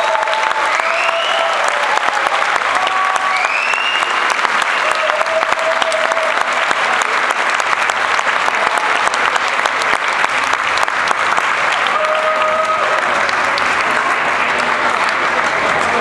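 Audience applauding steadily, a dense patter of many hands clapping, with a few short calls standing out over it near the start and again about twelve seconds in.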